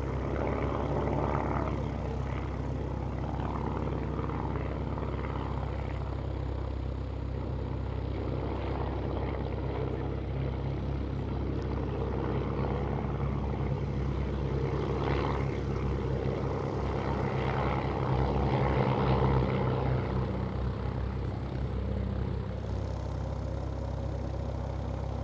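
Klemm 35D's propeller engine running steadily, growing somewhat louder about three-quarters of the way through, then easing off.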